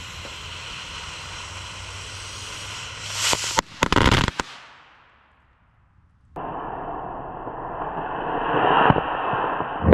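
Firecracker fuse hissing, then a quick cluster of sharp firecracker bangs about three to four seconds in that dies away. Partway through a second fuse hiss starts abruptly and builds toward another bang at the end.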